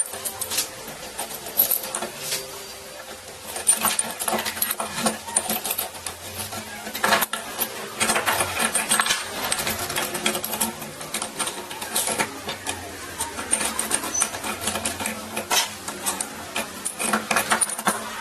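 Rapid, irregular mechanical clicking and light clattering from a small tool or mechanism at work.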